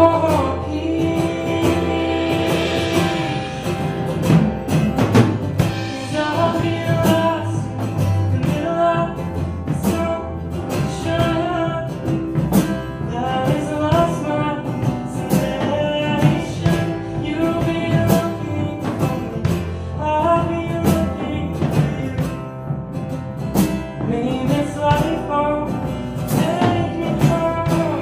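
Live band music: acoustic guitar, bass and drum kit playing an instrumental passage of a folk-rock song.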